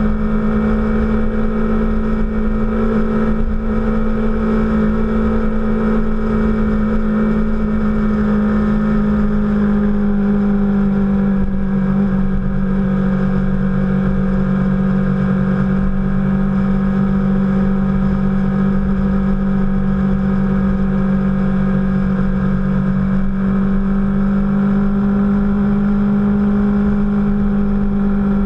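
Motorcycle engine running steadily at cruising speed, heard from a camera mounted on the bike's fairing, over a low rumble of wind and road. The engine note eases slightly about nine seconds in, then holds steady.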